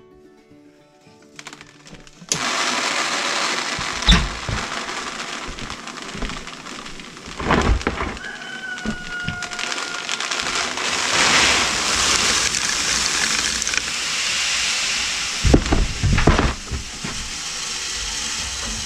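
Mixed seed pouring out of a steel barrel drum mixer into a plastic tub: a steady rushing hiss that starts about two seconds in, with a few knocks from the barrel along the way.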